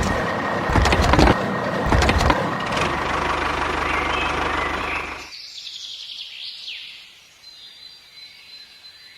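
Loud mechanical clattering with repeated knocks and a low rumble, which cuts off suddenly about five seconds in. Faint bird chirps follow.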